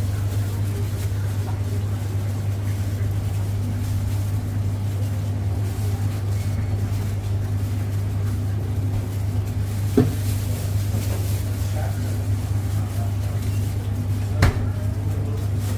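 Steady low mechanical hum of commercial kitchen equipment, with a sharp knock about ten seconds in and another near the end.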